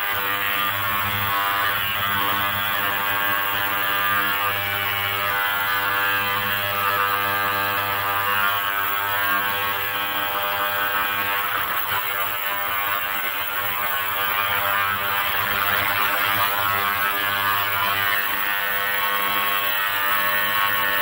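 Ultrasonic cleaning bath running, a loud steady buzz with a high hiss, as it sonicates a flask of carbon nanotubes dispersed in acetone. It cuts off suddenly at the very end as its timer runs out.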